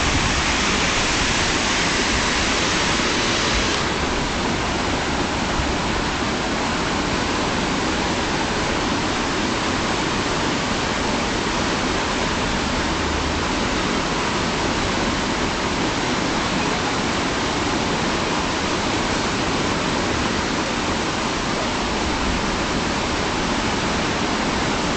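River rapids rushing: a steady wash of white water, its high hiss easing slightly about four seconds in.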